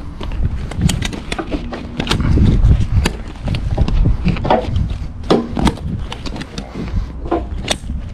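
Wind rumbling on the microphone, with footsteps on concrete and irregular sharp clicks and knocks.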